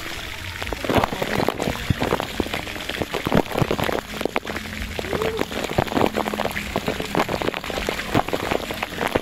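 Water pouring from a pool's water spout and spattering close by, a dense, steady patter of drops like heavy rain.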